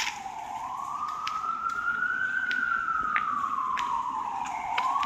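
Emergency vehicle siren wailing, its pitch sliding slowly down, up and down again and starting to rise once more, about four to five seconds per full cycle.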